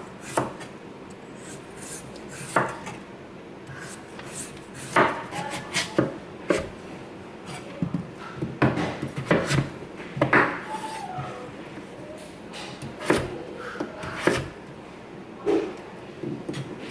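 Chef's knife shaving the peel off an upright daikon radish and cutting it into chunks on a wooden cutting board: scraping strokes and irregular knocks of the blade against the board.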